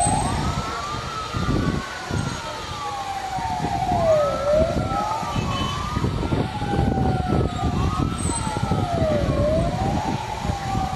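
Emergency-vehicle sirens wailing, two of them overlapping out of step, each sweeping slowly up and down about every five seconds, over a low rumble of street noise.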